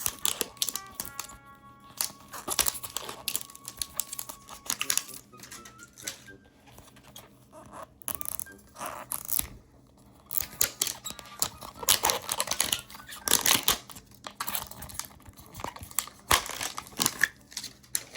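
Plastic packaging of a mystery toy being torn open and crinkled by hand: irregular rustling and ripping with pauses, over quiet background music.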